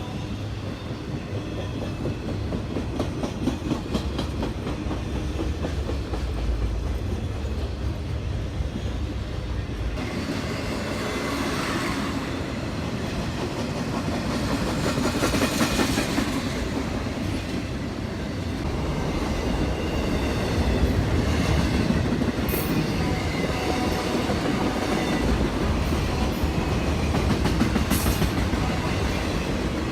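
A train rolling past close by, a steady heavy rumble with wheels clacking over the rail joints.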